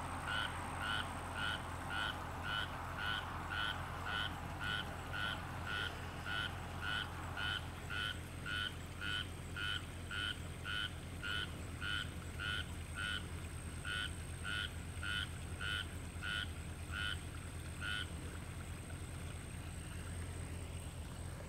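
A frog calling from the floodwater: a short croaking note repeated evenly about twice a second, stopping about 18 seconds in. A faint steady high-pitched tone and a low hum run underneath.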